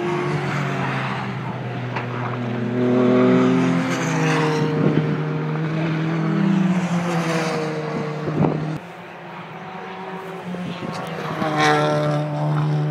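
Racing cars' engines at a circuit as cars pass and pull away, the engine note holding and then stepping with gear changes. The level drops about nine seconds in and picks up again near the end as another car comes by.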